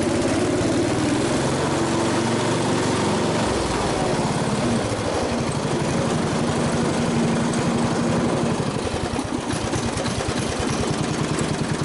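MTD ride-on mower's engine running steadily, its pitch shifting about four seconds in and running a little quieter from about eight seconds on.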